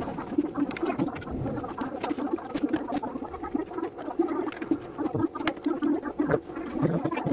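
Small plastic building-block pieces clicking and rattling as they are handled and fitted, in quick irregular clicks over a low murmur.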